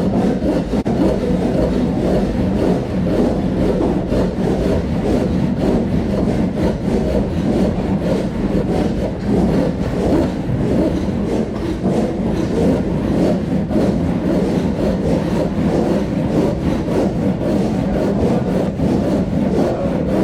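Wood being cut with a hand tool: a continuous, loud, rough rasping with no pauses.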